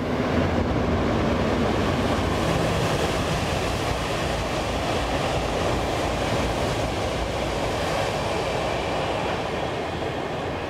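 Series E2 Shinkansen passing at high speed on an elevated track: a steady rush of wheel, rail and wind noise that swells sharply at the start, is loudest over the first few seconds, then slowly fades as the train draws away.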